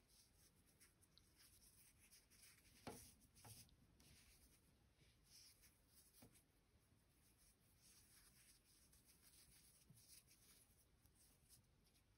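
Near silence with very faint rustling of cotton macrame cord being handled and tied into square knots by hand, and a few soft ticks.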